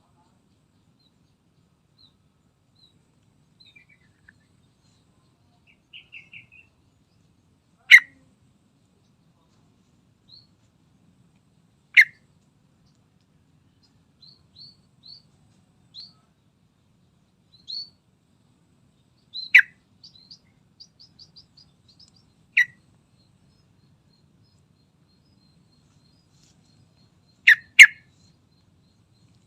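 Yellow-vented bulbul (trucukan) calling: single short, sharp loud notes every few seconds, with a quick double note near the end, and soft high chirps and brief trills in between.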